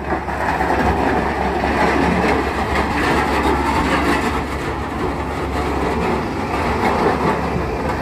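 Toy crawler bulldozer running on gravelly ground: a steady, loud rumbling clatter of its small motor and plastic tracks. It cuts in and off abruptly.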